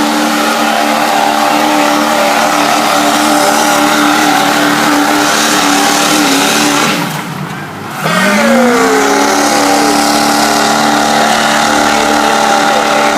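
Diesel truck engine running at full throttle with a steady high pitch. About seven seconds in it sags and nearly cuts out in a brief hiccup of power, then picks back up with a rising pitch and holds until it falls away at the very end.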